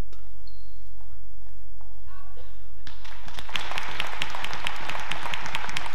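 A racket strikes the shuttlecock right at the start. About three seconds in, the arena crowd breaks into applause, with many sharp individual claps.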